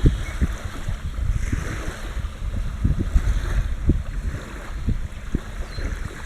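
Ocean waves washing on a shore in soft, repeated swells, with wind buffeting the microphone in irregular low thumps.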